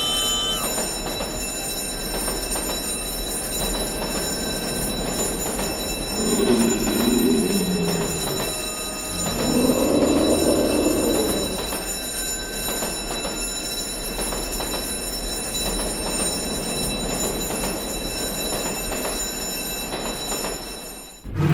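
Steady mechanical vehicle rumble, with two wavering tones that rise and fall about six and ten seconds in.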